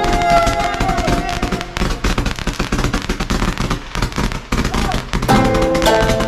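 A string of firecrackers going off in a rapid, dense crackle, mixed with music that comes back to the fore about five seconds in.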